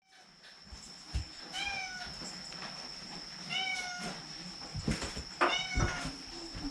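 A cat shut out on a balcony meowing three times in high, kitten-like cries, each call falling slightly in pitch: calling to be let back indoors. A few low thumps come in between the calls.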